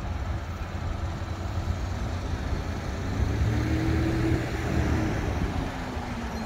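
Cars and pickup trucks driving past over the level crossing. The nearest one goes by loudest from about three to five seconds in, its engine hum audible over a low rumble.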